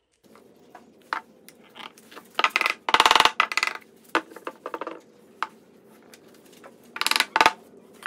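Small wooden sticks clicking and clattering as they are handled and set down on a wooden clock face and workbench. Scattered light knocks, with quick rattling clatters about three seconds in and again about seven seconds in.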